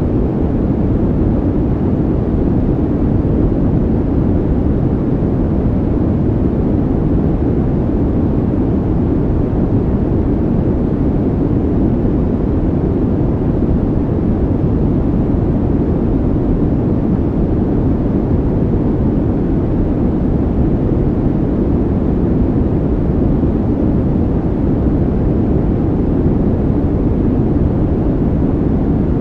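Steady, unchanging deep noise with no rhythm or pitch, most of it low and little hiss on top: an ambient calming-sound track of the brown-noise kind.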